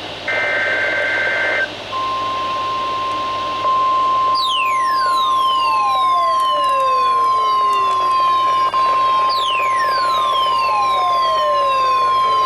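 NOAA Weather Radio alert: a SAME header data burst, a short buzzy two-tone warble, then from about two seconds in the steady 1050 Hz warning alarm tone, held unbroken for about ten seconds and cutting off at the end. Twice, a falling siren-like sweep glides down over the tone, about four and nine seconds in.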